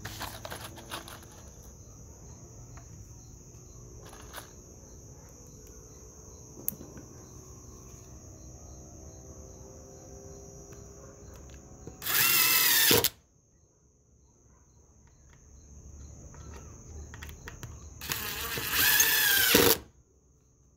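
Cordless drill with a countersink pilot bit boring two countersunk pilot holes into a pine board, in two short bursts: about a second long some 12 seconds in, then a longer one near the end. Crickets chirp steadily behind.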